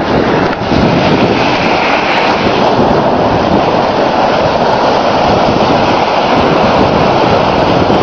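Loud, steady wind noise buffeting the microphone, mixed with the rush of waves breaking and spraying against a sea wall.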